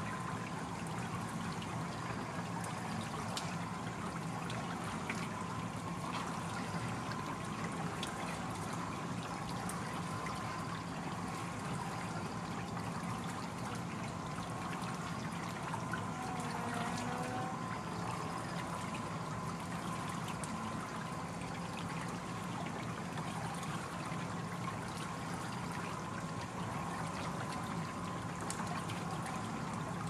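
Clear stream babbling steadily, with water trickling and splashing off the paddles of a turning wooden water wheel.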